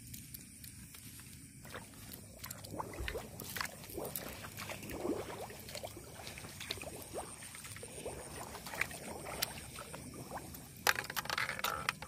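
Footsteps wading through shallow water and mud: irregular sloshing and splashing, heavier about eleven seconds in.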